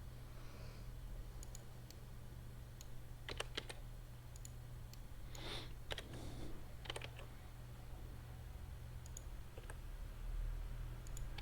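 Scattered clicks of a computer mouse and keyboard, coming a few at a time, over a faint, steady low hum.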